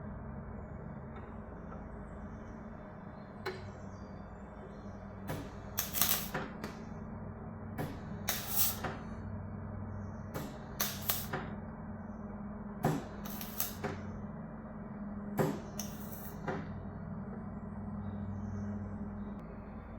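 Irregular sharp knocks and clatter of tools and metal being handled, some single and some in quick clusters, over a steady low hum.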